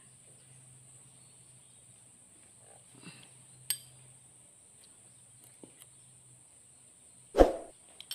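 Metal hand tools working on a diesel engine's valve rocker arms: scattered light clicks and ticks, a sharp click a few seconds in, and one loud short thud near the end, over a faint steady hum.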